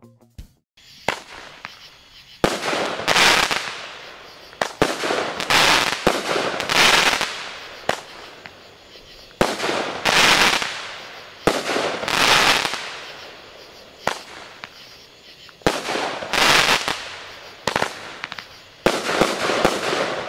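A 200-gram consumer fireworks cake (Legend Fireworks Key Break) fires shot after shot, one every one to three seconds. Each shot is a sharp crack followed by a loud hissing, crackling burst that trails away over about a second.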